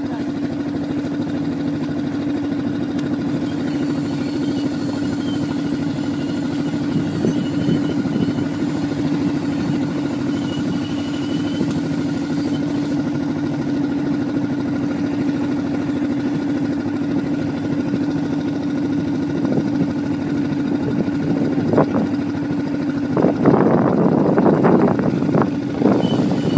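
ATV engine running at a steady, unchanging speed, with a cluster of knocks and rattles in the last few seconds.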